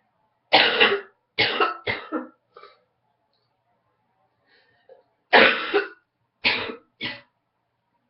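A woman coughing in two short fits, about four coughs starting half a second in and three more about five seconds in, from a morning head cold with congestion.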